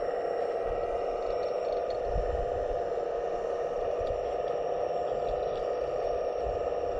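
Steady electric whine of the hydraulic pumps of 1/15-scale RC excavator models running, with a low rumble about two seconds in.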